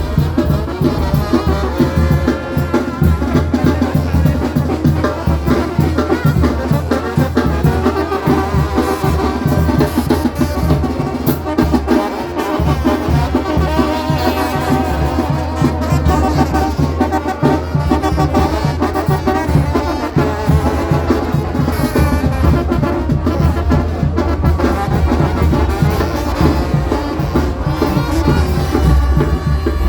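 Brass-band music: brass instruments playing over drums with a steady, regular beat.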